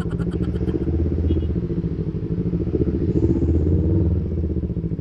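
Yamaha MT-25's 250 cc parallel-twin engine running at low revs, swelling slightly twice.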